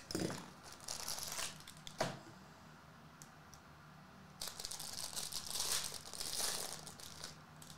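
Foil trading-card pack wrapper crinkling as it is torn open. Before that come a few short rustles and a single sharp click about two seconds in. The longest crinkling starts about four and a half seconds in.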